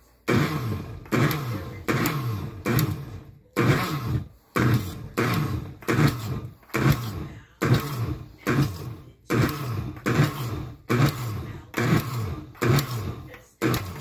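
Countertop blender with a glass jar run in short pulses, a little more than one a second, each starting sharply and dying away, chopping tomatillos and cilantro into salsa verde.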